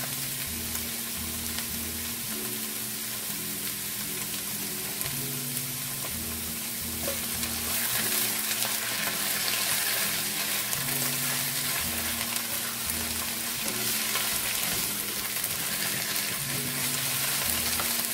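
Spinach, tomato and onion frying in oil in a pan, sizzling steadily while being stirred and turned with a spatula. The sizzle grows a little louder about seven seconds in.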